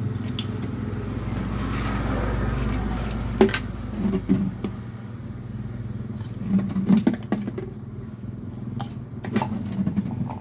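A motor vehicle's engine hums steadily in the background, with a louder vehicle noise swelling and fading over the first few seconds. After that come several short knocks and clatters of a plastic jug and plastic cup being handled.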